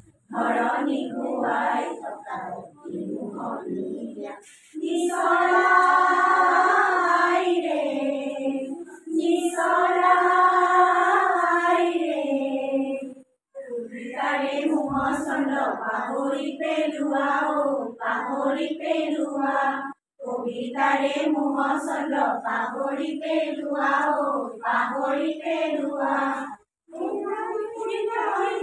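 A group of women and girls singing a song together without instruments. They hold long notes in the first half, then sing shorter phrases, with brief breaks between lines.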